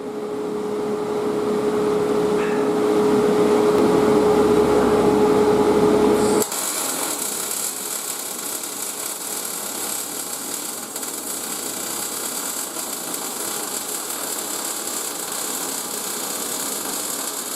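Welding on the inside of a steel boat transom: a loud, steady run with a low humming tone for about the first six seconds, then an abrupt change to a brighter, hissy sound that carries on.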